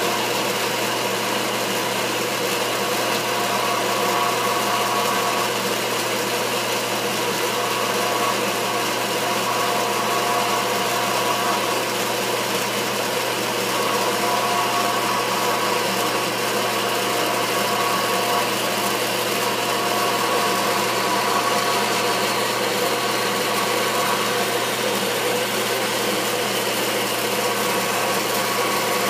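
Grizzly horizontal metal-cutting band saw running steadily, its blade slowly cutting through a short piece of metal round stock, over a constant motor hum.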